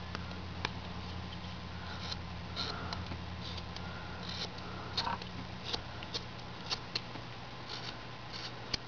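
Carving knife paring small slivers from a wood figure: scattered short scraping cuts and clicks at an irregular pace, over a steady low hum.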